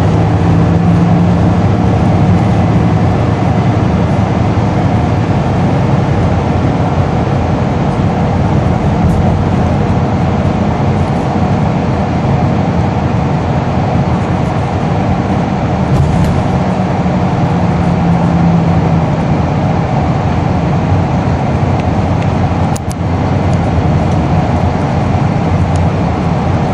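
Interior noise of a Scania N230UB single-deck bus on the move: its nine-litre five-cylinder diesel engine running steadily under road and body noise. Near the end there is a brief dip with a faint click.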